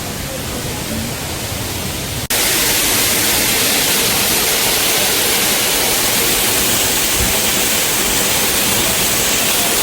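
Steady rushing roar of a waterfall, jumping suddenly louder a little over two seconds in and then holding steady.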